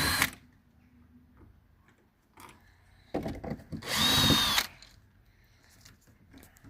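Power drill-driver run in two short bursts with a high whine, one just at the start and a longer one of about a second and a half about three seconds in, as it works the screws of a door handle.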